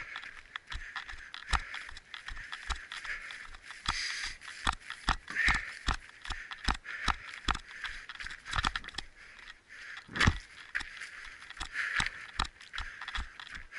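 Running footsteps: a quick, uneven series of thuds, about two to three a second, over a steady hiss.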